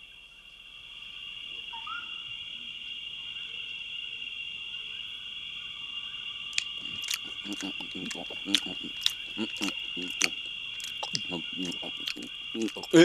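Night ambience of steady cricket chirring with an owl hooting. From about halfway in, a run of sharp crunching clicks and short low munching sounds is added: the donkey and jackal eating cucumbers.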